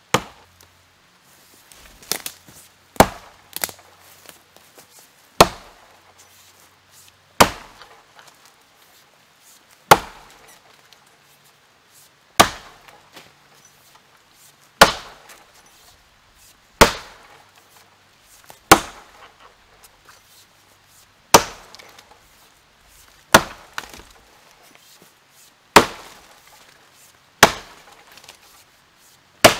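Rinaldi Calabria 700 g axe chopping into a felled branch. Each blow is a sharp crack, landing roughly every two seconds, about fifteen in all, with a quick double strike a few seconds in.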